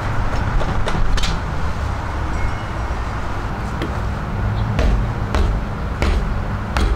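Light clicks and knocks from handling a mountain bike suspension fork and its front wheel, over a steady low rumble.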